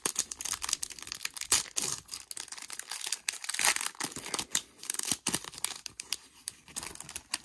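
Clear plastic card sleeves and wrapping crinkling and crackling in irregular bursts as hockey cards are handled and slid out of them.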